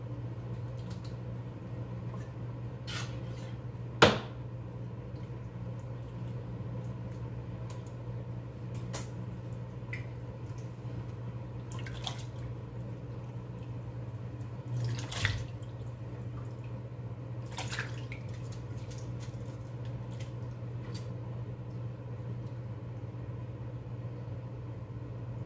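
Sporadic clicks and knocks of a knife and stick on a sink counter while raw beef intestines are handled, over a steady low hum. The loudest knock comes about four seconds in, with another cluster around fifteen seconds.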